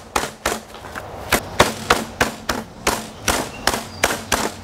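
Handheld meat tenderizer pounding a butterflied beef tenderloin flat through plastic wrap on a metal sheet pan: a steady run of strikes, about three a second.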